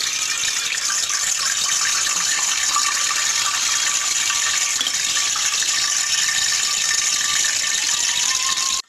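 Pot of soup boiling hard on the stove, a steady, dense bubbling rattle that cuts off abruptly near the end.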